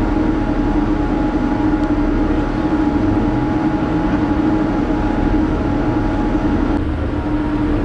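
Car ferry Sound of Shuna's engines and machinery running under way: a steady, loud drone with a constant low hum.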